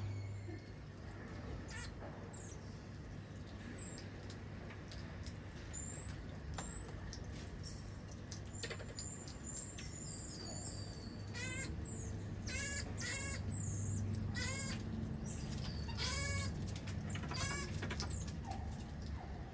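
Common marmosets calling: scattered short, high-pitched chirps, then about two-thirds of the way in a run of louder, quavering calls, all over a steady low hum.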